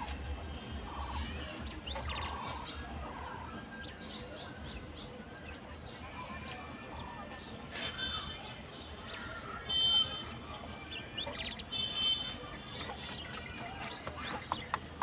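Quails chirping in short, scattered calls, with a few brief higher piping notes; a run of quick clicks starts near the end.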